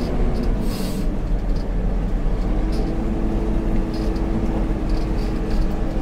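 JCB backhoe loader's diesel engine running steadily, heard from inside the cab while the machine is driven. A brief hiss comes about a second in, and a steady whine joins at about two and a half seconds.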